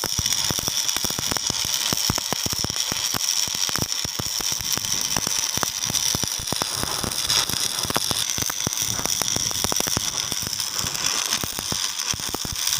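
Electric arc welding: a continuous, irregular crackle of the arc over a steady high hiss.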